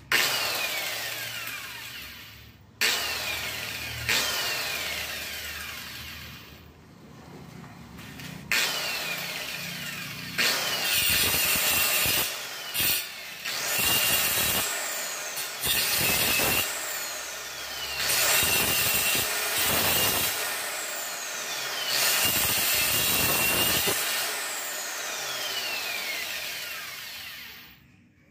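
Angle grinder fitted with a toothed wood-cutting blade, switched on and off several times and cutting through pieces of wood, the motor's whine falling in pitch each time it winds down between bursts. The sound dies away near the end as the blade stops.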